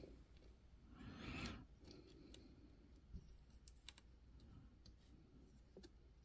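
Near silence with a few faint, scattered clicks of small plastic toy parts being handled and pressed together, and a brief soft rustle about a second in.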